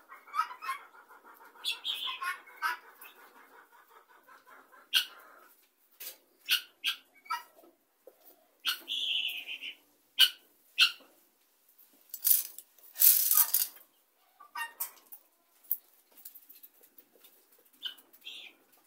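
Helmeted guineafowl flock calling while feeding: a dense rapid chattering for the first five seconds, then scattered sharp clicks and short calls, with a noisy burst lasting over a second about two-thirds of the way through.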